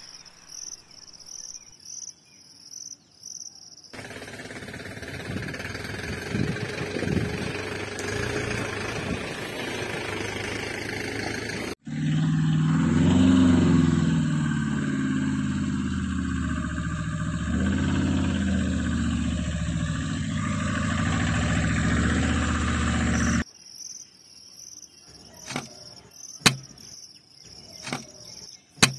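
Insects chirping steadily, then about twelve seconds in a vehicle engine starts running steadily, loud and low, for about eleven seconds before cutting off abruptly. The insect chirping returns afterwards with a few light clicks as miniature bricks are set down on a toy truck's bed.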